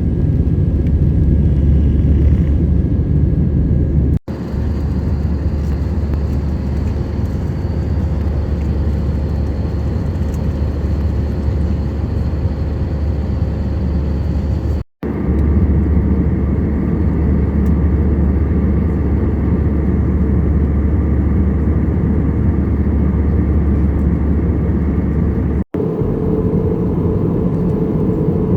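Airbus A321 cabin noise: a steady, loud low rumble of the engines and airflow. It drops out for an instant three times at abrupt cuts, and the character shifts a little after each one.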